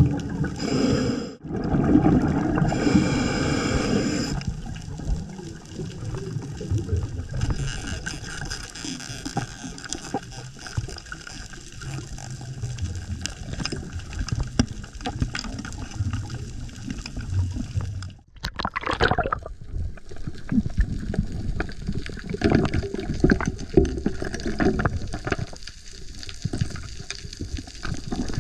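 A scuba diver's breathing heard underwater: bursts of bubbling as each breath is exhaled through the regulator, with quieter stretches between, and small clicks and knocks of gear.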